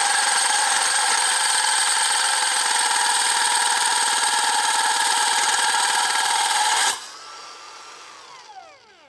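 Hilti NRC6-22 cordless rebar cutter running its cold-cut blade through steel rebar: a loud, steady mechanical whir with grinding noise. About seven seconds in it stops, and the motor spins down with a falling pitch that fades out.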